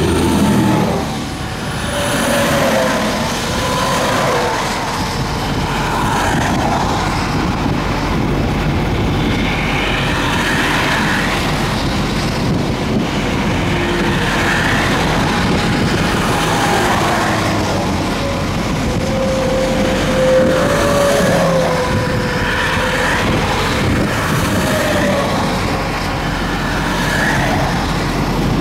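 Highway traffic passing close by: semi trucks and cars going past one after another, with a continuous rush of tyre and engine noise and a pitch that rises and falls with each pass.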